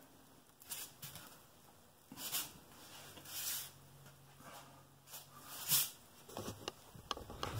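Palms pressing and rubbing a rigid foam block down onto a countertop form: a few short, soft scuffs, then light clicks and knocks near the end.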